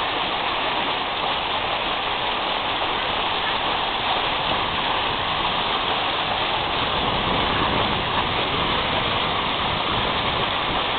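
Steady, even rushing of water, with no rhythm or pitch.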